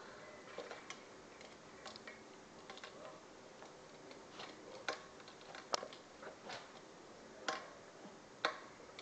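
A small dog licking and chewing the last of her food from a stainless steel bowl, her tongue and teeth clinking against the metal in irregular sharp clicks, the loudest about six seconds in and near the end.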